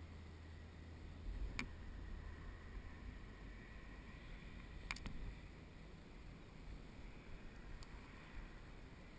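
Quiet outdoor ambience: a faint low rumble with two sharp clicks about a second and a half and five seconds in, and a fainter tick near the end.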